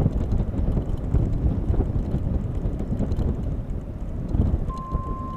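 Wind buffeting the microphone, a gusty low rumble. Near the end a steady high beep-like tone starts and holds.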